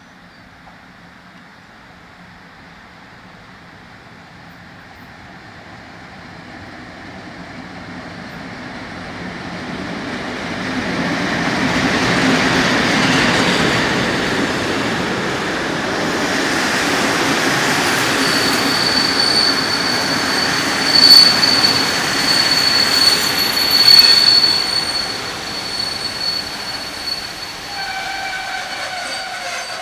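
Passenger train arriving along the platform, its noise swelling from faint to loud as the locomotive and coaches draw level. About two-thirds of the way in a steady high squeal sets in as the train slows to stop at the station, with two loud clanks along the way.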